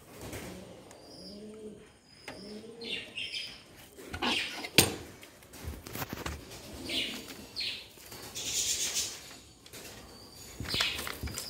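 Domestic pigeons cooing, with bursts of wing flapping and rustling. There is one sharp knock nearly five seconds in.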